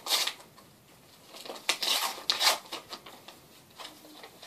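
Paper envelope being handled and opened by hand: short bursts of paper rustling and crinkling, one right at the start and a cluster about one and a half to two and a half seconds in.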